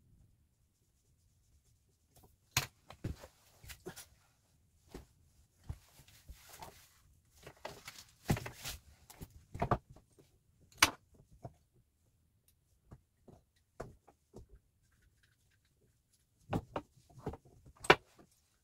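Scattered knocks and clicks of objects being handled and set down, with brief rustling in between; the sharpest knock comes near the end.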